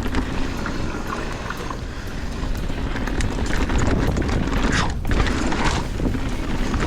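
Mountain bike riding down a dirt trail: a steady low rumble of wind on the microphone and tyres over the ground, with the bike rattling and clicking over bumps and a louder rush of noise about five seconds in.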